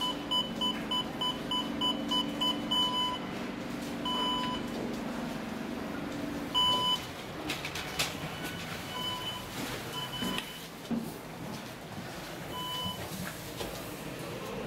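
Beeping from a Kone machine-room-less traction elevator: short two-tone beeps at about three a second for the first three seconds, then single beeps every few seconds. A low hum runs under them and stops about six and a half seconds in, with a longer beep. After that come scattered clicks and knocks.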